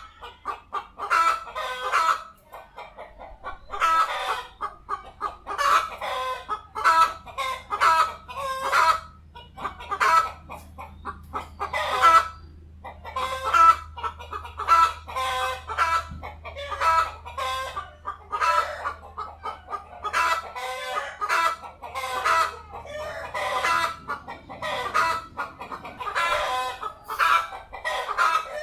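Chickens clucking in short, repeated runs of calls, with brief pauses between runs.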